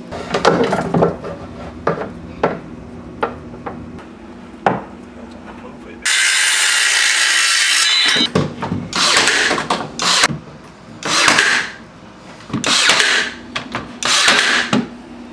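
Tool work: scattered small clicks and snips of electrical cable being stripped, then a two-second stretch of steady loud power-tool noise that starts and cuts off abruptly, followed by four separate bursts of power-tool noise, each about a second long.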